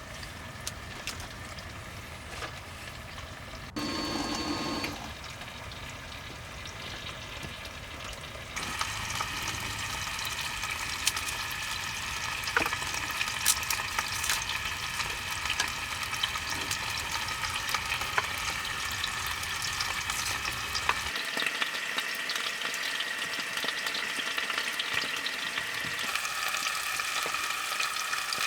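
Food frying in a pan, a steady sizzle with scattered pops and crackles. It gets clearly louder about a third of the way in.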